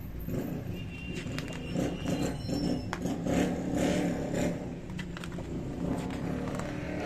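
Glossy magazine pages handled and turned by hand, with several paper rustles and flaps in the middle seconds, over a steady low background rumble.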